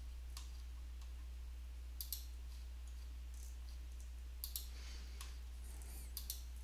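Computer mouse buttons clicking: a few sharp clicks, the loudest in quick pairs about two seconds apart, over a steady low hum.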